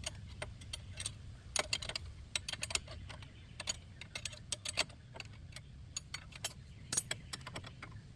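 Irregular metallic clicks and clinks of hand tools (wrench, socket and extension) working on a seized, rusted brake bolt, over a faint steady low rumble.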